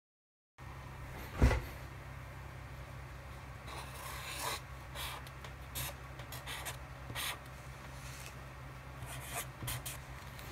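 A picture frame set down on a paper pad with a single knock, followed by a marker scratching across paper in many short strokes as words are written. A steady low hum runs underneath.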